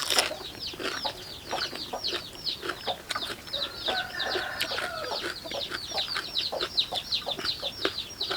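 Chicks peeping, a rapid, unbroken run of short high falling chirps at about six a second. Irregular crunchy clicks of chewing fresh vegetables sound over them.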